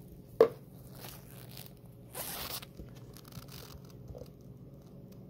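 Gloved hands handling a clear plastic container: a sharp click about half a second in, then a short rasping scrape about two seconds in, with faint rubbing and rustling between.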